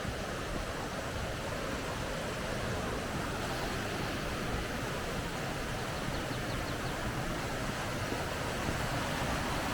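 Mountain stream rushing steadily over rocks, running full after a night of rain.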